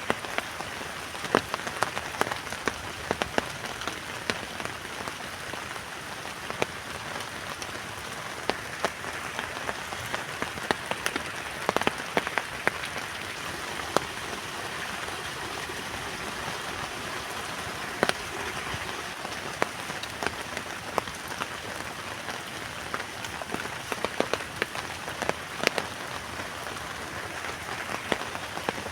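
Heavy rain falling on a tent: a steady hiss with many sharp, irregular drop strikes on the fabric.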